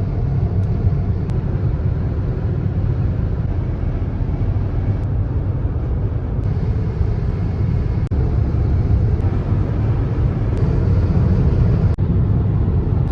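Car driving on the road: a steady low rumble of road and engine noise.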